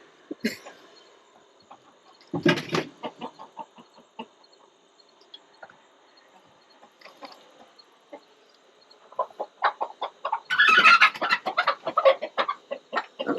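Chickens clucking: one loud squawk about two and a half seconds in, a few soft clucks, then a quick run of loud clucks and squawks over the last few seconds.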